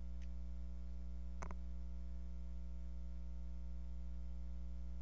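Steady electrical mains hum with a stack of even overtones, and a faint click about a second and a half in.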